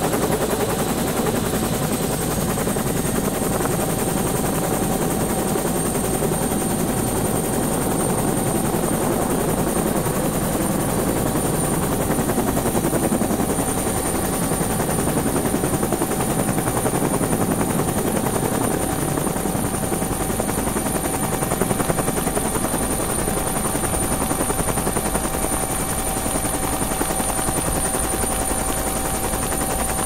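Bell 212 helicopter heard from inside the cabin: a steady, rapid chop from the main rotor over a high turbine whine. The whine rises slightly in pitch over the first several seconds, then holds.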